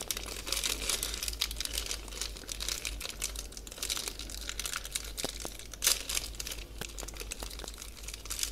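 Small clear plastic zip bag crinkling as hands handle it and pull at its top. It gives a run of small crackles, with a louder crinkle about six seconds in.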